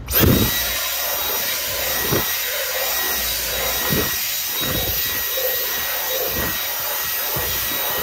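Dyson V10 Animal cordless stick vacuum switching on at the start and running with a steady high whine, its combination tool's bristle brush scrubbing back and forth over car carpet in soft strokes about once a second.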